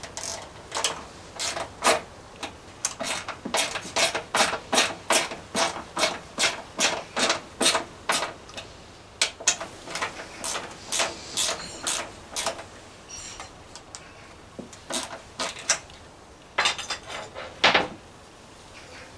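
Ratchet tool clicking in an even run of about three clicks a second as a mounting bolt of a scooter grab rail is tightened. The clicking stops about two-thirds of the way in, with a few more clicks near the end.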